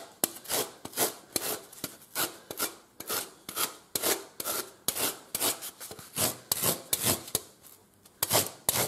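Large hand rasp stroked back and forth over a saddle knee roll, taking the ridges off and smoothing its shape. Even rasping strokes, about two to three a second, with a short pause near the end.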